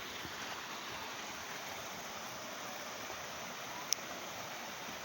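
Steady rushing of a waterfall, with one sharp click about four seconds in.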